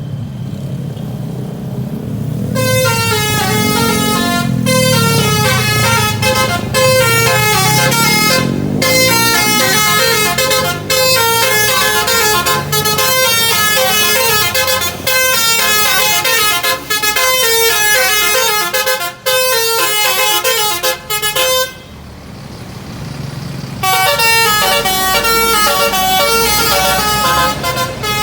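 Basuri telolet musical bus horn playing a fast melody of quickly changing pitched horn notes, breaking off for a couple of seconds about three-quarters of the way through and then starting again. A lower engine sound rising and falling in pitch runs underneath in the first stretch.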